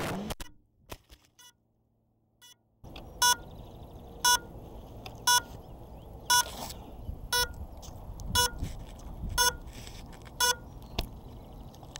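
A crashed FPV quadcopter's lost-model locator beeping: short, sharp, pitched beeps about once a second, set off because the drone lost its radio link (failsafe) and is waiting to be found. A brief burst of noise from the crash cuts off in the first half second, then near silence before the beeping starts.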